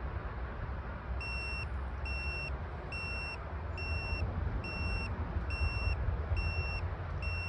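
Handheld carbon monoxide meter's alarm beeping, a short high beep a little more than once a second, starting about a second in: the meter is picking up carbon monoxide in the fireplace exhaust. Wind rumbles on the microphone underneath.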